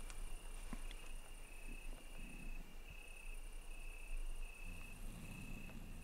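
Insects chirping: a high trill that repeats in short pulses a little more often than once a second, over a faint background hiss.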